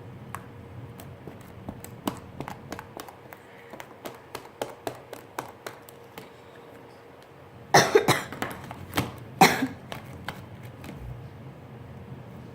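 Fluffy slime being squeezed and kneaded by hand, making a run of small sticky clicks and pops. About eight seconds in come two louder bursts, a second and a half apart.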